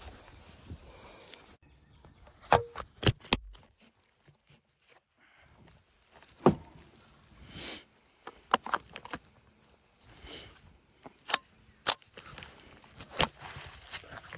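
A rifle and its detached box magazine being handled, giving an uneven series of about ten short, sharp clicks and knocks.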